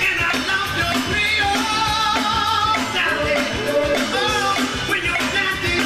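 Live rock band playing a song: electric guitar, bass guitar and drums, with a voice singing the melody over it.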